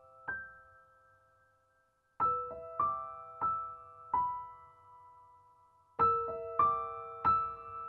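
Soft background piano music: single notes struck a few at a time, each ringing and fading, with a short silence about a second in before the notes start again.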